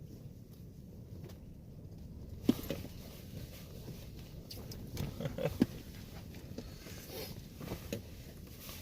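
Scattered small knocks and rustles, a sharp one about two and a half seconds in and a quick cluster about five seconds in, over a steady low rumble, typical of handling gear inside a small ice-fishing shack.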